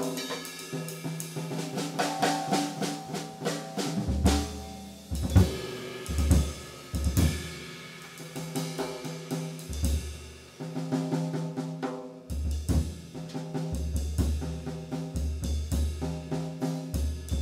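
Jazz drum kit played with sticks, busy snare strokes, bass drum hits and cymbal work, with held pitched notes from the rest of the small jazz ensemble underneath.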